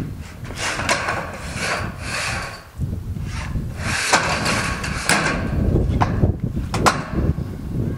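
Trapezoidal metal roof sheet scraping as it is pushed and slid by hand into alignment, in two long scrapes, then two sharp clicks near the end.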